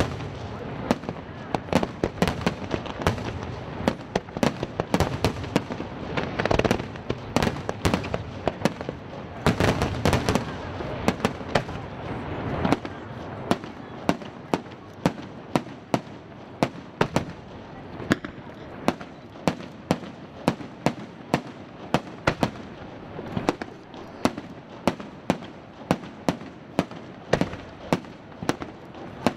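Aerial fireworks display: a dense, overlapping barrage of shell bursts and crackle, then from about halfway a steady run of sharp single bangs, about two a second.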